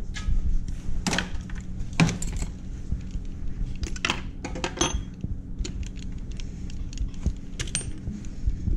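Chrome steel sockets, extensions and a ratchet clinking as they are put back into a foam-lined toolbox drawer: irregular sharp metallic clicks, the loudest about one and two seconds in.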